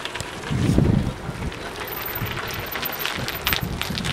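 Wind buffeting the microphone outdoors, with a low gust about half a second in, and scattered light clicks and ticks throughout.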